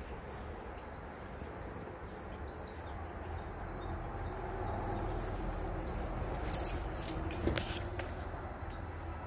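Lycan Shepherd dogs play-fighting: low growls and the scuffle of bodies and paws on the patio, swelling a few seconds in, with a few sharp clicks around seven to eight seconds in.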